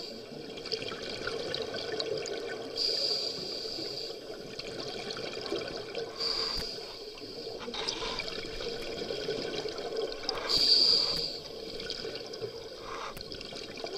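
Scuba regulator breathing underwater: a rush of exhaled bubbles about every three to four seconds, with a steady low hiss and a few small clicks in between.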